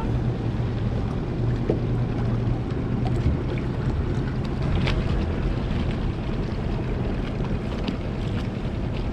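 Outboard motor running steadily at slow trolling speed, a low even hum, with water and wind noise on the microphone.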